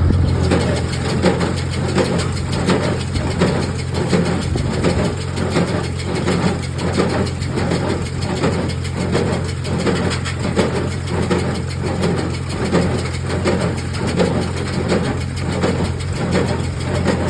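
A Farmall 450 tractor engine runs steadily while a Case IH square baler works behind it. The baler's plunger strokes in an even rhythm of about three strokes every two seconds.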